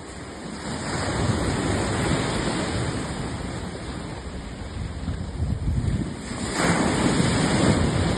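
Surf: waves washing in as a steady rushing noise that swells and fades, with a louder surge about six and a half seconds in.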